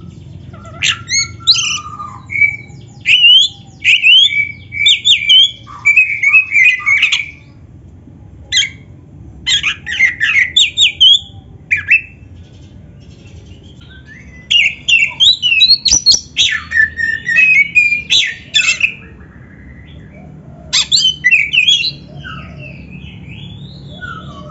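Oriental magpie-robin (kacer) singing in loud bouts of rapid, varied whistles mixed with harsh rasping notes. The bouts are broken by short pauses, after about seven seconds, about twelve seconds and about nineteen seconds in. A faint low hum runs underneath.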